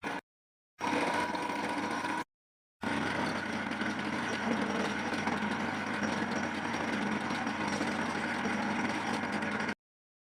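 Factory machinery running with a steady hum, heard in two stretches that cut off suddenly, with dead silence between them.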